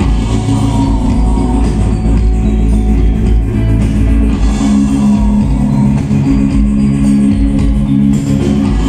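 A live rock band playing loudly: electric guitar, bass guitar and drum kit, with the singer's voice over them, heard from among the audience.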